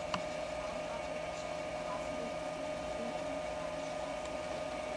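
Steady electrical hum with a constant high whine from the running amplifier test bench and its bench power supply, with one small click just after the start.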